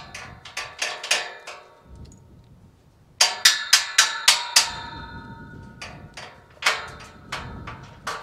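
Steel tube ranch gate and its hinge hardware clanking against each other: sharp metal knocks that ring on after each strike, with a quick run of about six strikes a little after the middle and a few single knocks either side.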